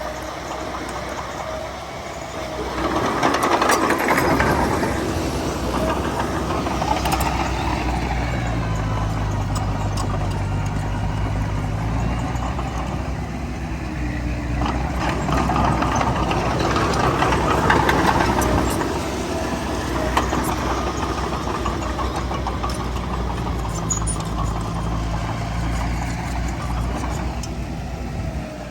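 Heavy diesel engine of a bulldozer working, running steadily and swelling louder twice as it takes on load.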